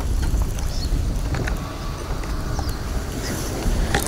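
Wind buffeting the microphone, a steady low rumble, with a few faint clicks and rustles over it.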